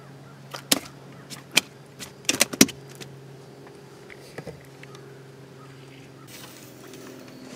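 A small electric motor hums steadily at a low pitch. Several sharp clicks and knocks come in the first three seconds, and a soft hiss follows near the end.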